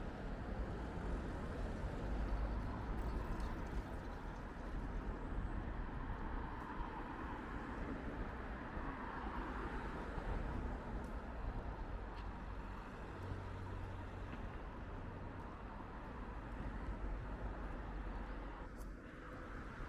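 City street traffic: a steady rumble of passing cars.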